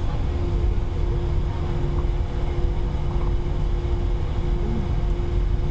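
Airbus A320 cabin noise over the wing while taxiing after landing: the engines' steady low rumble at taxi power, with a constant hum running through it.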